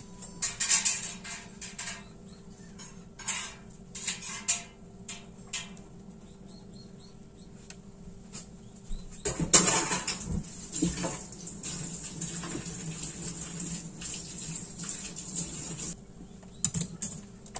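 Kitchen clatter of a steel pot, its lid and utensils being handled: scattered clinks and knocks, with a louder burst of noise about halfway through that settles into a steady hiss for several seconds before more clinks near the end.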